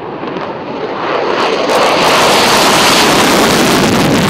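Single-engine fighter jet, an F-16, taking off on afterburner: a loud jet roar that builds over the first two seconds and then holds, with a rough crackle in the upper range.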